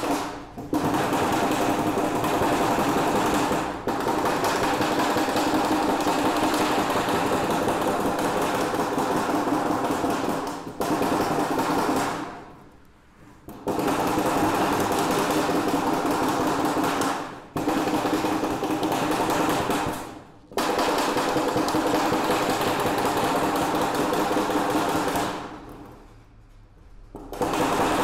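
A steady mechanical running noise with a dense rattling texture, along with metal scraping as hand pliers bend up the edge of the outlet hole in a galvanized sheet-metal gutter. The sound breaks off briefly several times, the longest gaps about halfway through and near the end.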